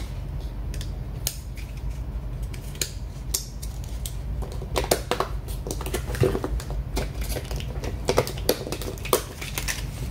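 Irregular clicks, taps and light clatter of an Acer 4732Z laptop's plastic casing and small parts being handled during a RAM swap, over a steady low hum.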